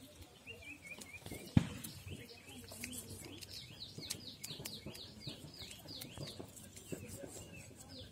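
A small bird chirping outdoors: a brief twitter, then a quick run of repeated falling notes, about two or three a second, from around three and a half seconds in. A single sharp knock about one and a half seconds in is the loudest sound, with a few lighter clicks.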